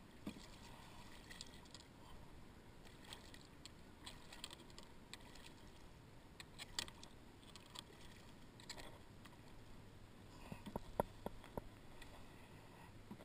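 Small splashes and scattered light clicks and knocks from a fish being landed by hand beside a kayak. A denser cluster of sharper knocks comes near the end as the fish is lifted aboard against the hull.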